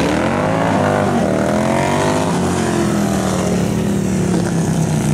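Heavy twin-cylinder bagger racing motorcycles accelerating hard through a bend, several engines overlapping. The engine pitch climbs in the first second, drops briefly as the riders shift or roll off, climbs again, then slowly falls away.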